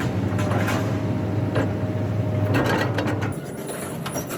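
Heavy machinery running with a steady low engine hum and several metallic knocks and clanks; the engine note drops lower about three seconds in.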